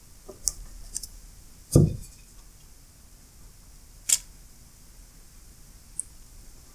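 Quiet handling of small ratchet parts and an aerosol lubricant can: a few light clicks, a dull knock about two seconds in, and a short sharp click about four seconds in.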